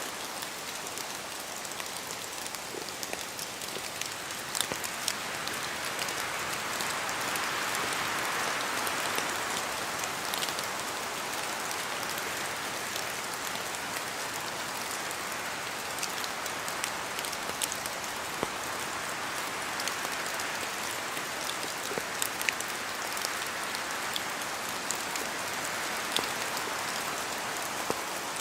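Steady rain falling through forest trees, with many separate drops pattering on leaves. A gust of wind swells through the trees about five seconds in, then eases.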